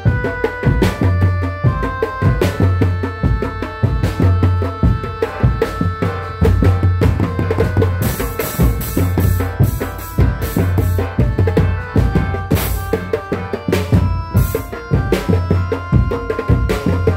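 Loud live drum-led percussion music: fast, dense drumming with a melody of held notes above it and a deep low pulse that comes and goes. Bright crashes ring out about eight seconds in and again near thirteen seconds.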